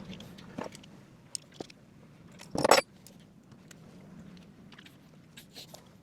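Hand work on small metal parts: scattered light clicks and knocks, and one loud, short rattle about two and a half seconds in.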